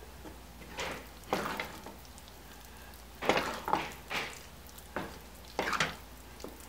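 Wooden spoon stirring thick, wet sweet pongal (cooked rice mashed into jaggery syrup) in a pressure cooker pot, in about five separate bursts of strokes.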